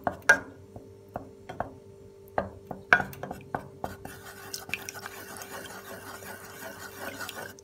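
Wooden spoon stirring milk and melting butter in a nonstick saucepan, knocking against the pan about twice a second. About four seconds in, the knocks give way to a steady hiss. A steady hum runs underneath.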